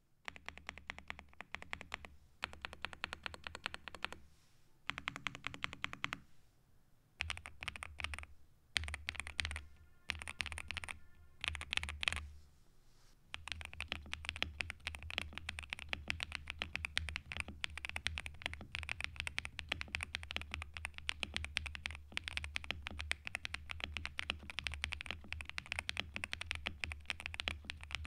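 Typing on a stock YUNZII B75 gasket-mount mechanical keyboard with LEOBOG Graywood V3 linear switches, a polycarbonate plate and double-shot ABS keycaps: dense key clacks, thocky in tone. The keys go in short bursts with brief pauses at first, then in a steady run of continuous typing from about halfway.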